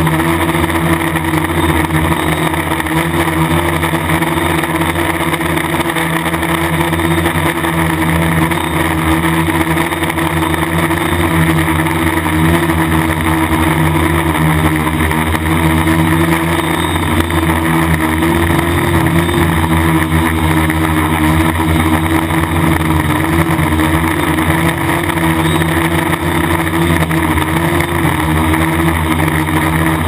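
DJI F550 hexacopter drone's six electric motors and propellers in flight, heard through the GoPro mounted on the drone. They make a loud, steady buzzing hum of several tones whose pitch wavers slightly as the motors adjust.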